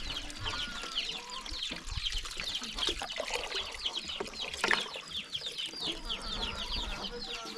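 Many birds chirping without a break, short falling chirps overlapping several times a second, with a single sharp knock about halfway through.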